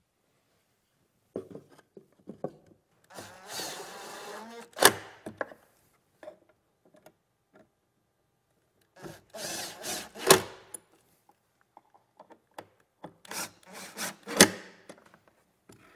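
Cordless Makita impact driver driving screws into pine boards: three short runs, each ending in a sharp crack, with light knocks of wood being handled between them.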